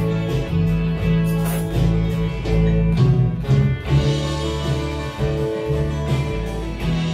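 Music: a song with a bass guitar playing held notes that change every half second or so over guitar backing.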